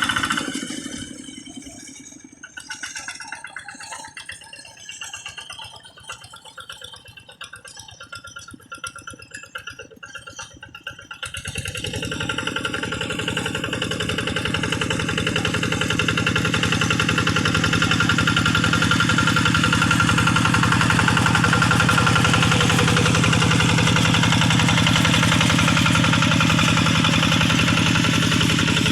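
Kubota RD85Di single-cylinder diesel engine of a hand tractor: running, then dropping away about a second in to a faint irregular knocking for about ten seconds, before it comes back in suddenly about 11 seconds in and runs steadily, growing louder over the next few seconds.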